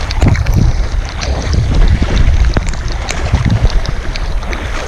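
Strong wind buffeting the action-camera microphone on a kayak out on the sea, a loud uneven rumble with water noise and small scattered knocks.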